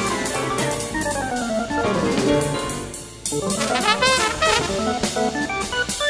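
Studio jazz band recording with drum kit, the band playing together. The sound thins out for a moment about halfway through, then the full band comes back in sharply.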